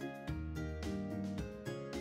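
Instrumental background music: pitched notes in chords that change at a regular pulse.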